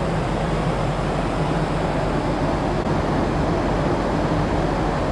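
Large car ferry's machinery and ventilation heard on the open deck: a steady rushing noise with a low hum underneath, unchanging throughout.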